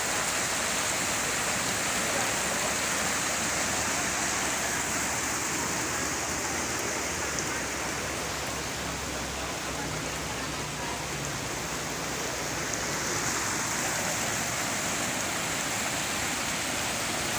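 Steady rush of water at a constant level, with no distinct drops, splashes or knocks.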